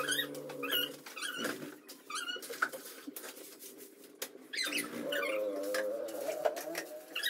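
Pet Indian ring-necked parakeet giving a string of short, high chirps and squawks, several spaced through the few seconds, with a low wavering hum underneath.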